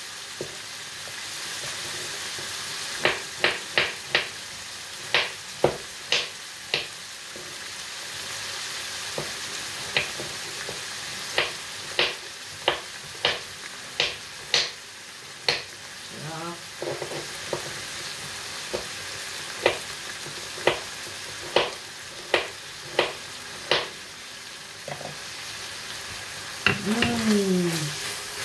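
Food sizzling in a frying pan with a steady hiss while a utensil stirs it, knocking sharply against the pan many times in quick runs.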